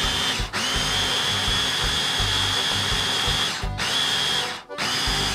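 Electric mini chopper blending chilies, garlic and herbs in vinegar: its small motor whines steadily at a high pitch. It cuts out briefly a few times as it is pulsed.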